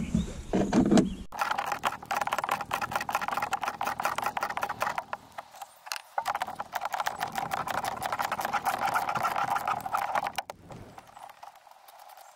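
Socket ratchet clicking rapidly as it undoes the nuts holding a car's dash speaker, in two runs of about four seconds each with a short pause between.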